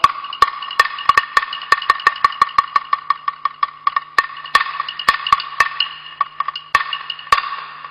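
Chinese opera percussion between sung lines: sharp wooden clicks, a few at first, then a quick run of about four to six a second, thinning out near the end, over a faint steady held note.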